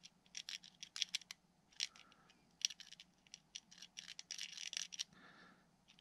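Faint, irregular clicks and scratches of hand work: a needle-tipped bottle of thin CA glue touching a wooden motor-mount plate and its metal pins as the plate is handled. The clicks are densest about four seconds in, over a low steady hum.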